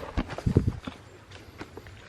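A hiker's footsteps on a rocky trail: a quick run of hard knocks and scuffs on rock, heaviest about half a second in, then lighter, scattered steps.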